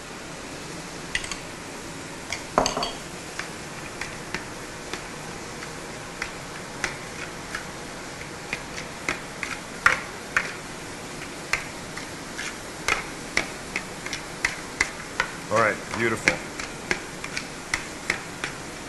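Metal tongs clinking and scraping against a glass bowl while tossing chopped romaine salad. The clicks are irregular and come thicker in the last few seconds.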